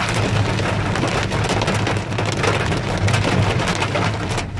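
Heavy rain mixed with hail pelting hard surfaces: a dense, loud patter of sharp taps over a steady rushing noise and a low rumble.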